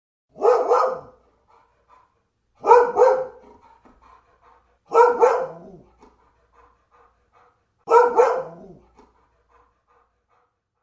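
A dog barking in four bursts of two quick barks each, a burst roughly every two and a half seconds.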